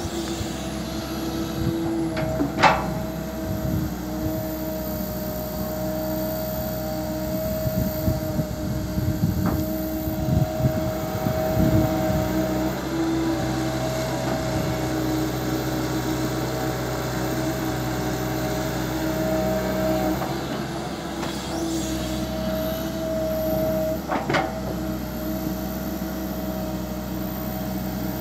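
Komatsu PC200LC hydraulic excavator's diesel engine running steadily under load while it digs and swings. There are two sharp clanks, one a few seconds in and one near the end.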